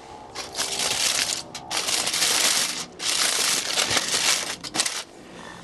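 Aluminium tin foil being handled and crumpled, crinkling in several bursts with short breaks.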